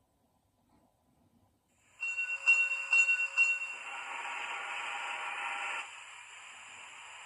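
Zimo MX645 sound decoder in a Fleischmann P8 steam locomotive model, playing steam sounds through its small speaker. After about two seconds of silence, a high steady tone with a few sharp pulses gives way to a hiss of steam, which drops to a softer hiss near the end.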